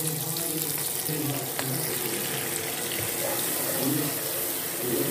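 Sliced onions frying in hot oil in a pan: a steady sizzle.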